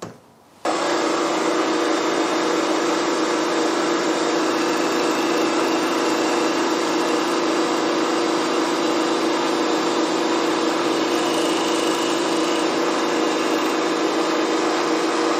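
Milling machine spindle running steadily while a small end mill cuts the jaw lip of a steel lathe parting blade, a constant machine hum with a few held tones. It starts abruptly a little under a second in and cuts off suddenly at the very end.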